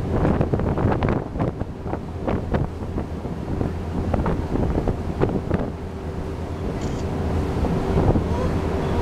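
Wind buffeting the microphone in uneven gusts aboard a vessel at sea, over a steady low engine drone.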